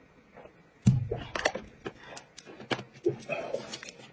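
Tableside handling and drinking sounds: short knocks and clicks of a plastic cup and lid being handled, with a drink being gulped. The loudest knock, a low thump, comes about a second in.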